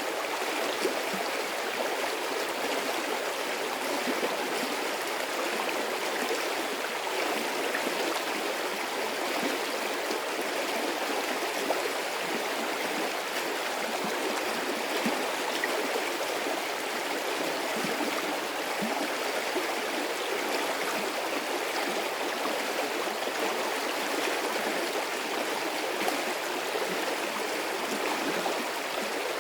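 A medium-sized stream of water flowing steadily, with a constant rushing and fine gurgling.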